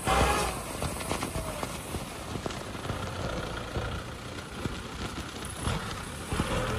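Kubota M6040 tractor's diesel engine running under load as its front dozer blade pushes soil, with scattered knocks and clanks. A louder burst of noise comes right at the start.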